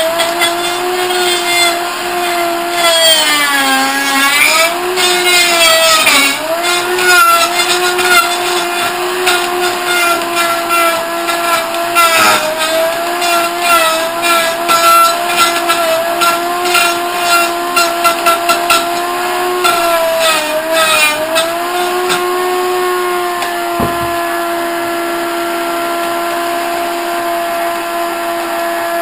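Dr. Tech CS-020 heavy-duty commercial blender running at high speed, grinding chunks of wood: a steady motor whine with dense rattling of wood pieces against the jar. The motor pitch sags under load a few seconds in and again at about twenty seconds. In the last quarter the rattle fades to a smoother whine as the wood is reduced to fine sawdust, with one dull knock.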